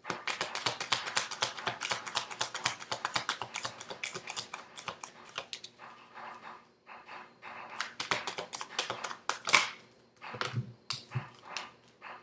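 Tarot cards being shuffled by hand: a fast, dense run of card clicks for about five seconds, then slower, scattered flicks of cards with one sharper snap about nine and a half seconds in.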